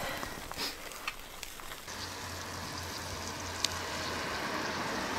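Oysters sizzling on a charcoal grill: a light crackling hiss with a few small clicks, turning into a steadier, even hiss about two seconds in.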